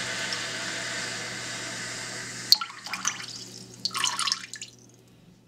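Water running steadily from a kitchen faucet into a sink, cut off with a sharp click about halfway through; the flow dwindles to a trickle, with a few last splashes and drips fading out.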